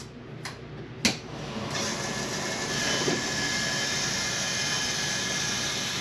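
Powered roof vent fan in a travel trailer's bathroom ceiling switched on with a click about a second in, then running with a steady whir and a faint thin whine.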